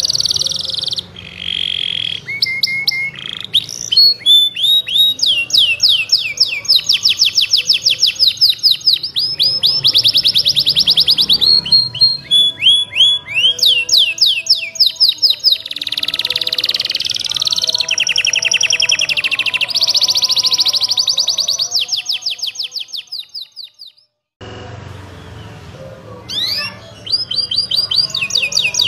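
Domestic canary singing a long, continuous song of fast trills and rapidly repeated rising chirps. Near the end one trill fades away, the sound breaks off briefly, and the singing resumes.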